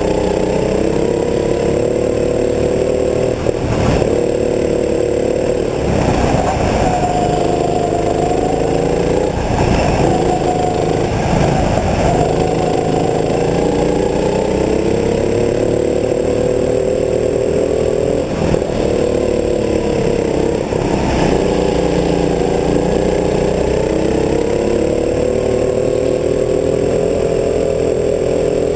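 Rental go-kart engine running under throttle, its pitch rising along the straights and dropping each time the driver lifts for a corner, several times over.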